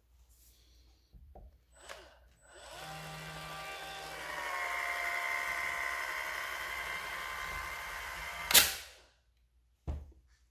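Ridgid 18-volt cordless caulk and adhesive gun's motor whining as it drives the plunger and lays a bead of adhesive. It runs for about six seconds, gets louder a second and a half in, and stops with a sharp click.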